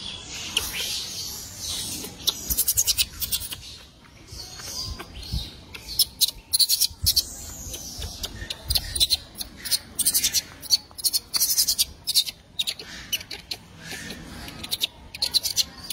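Rapid clusters of sharp crackling clicks from a small white plastic cup being handled and picked at by a macaque, with a few faint high squeaks in between.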